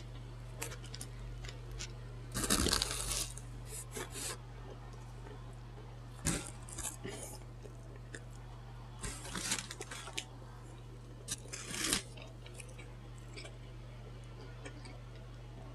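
Close-miked eating of an overstuffed Subway sandwich with lettuce, bacon and peppers: several short crunchy bites and chewing sounds with small mouth clicks between them, over a steady low hum.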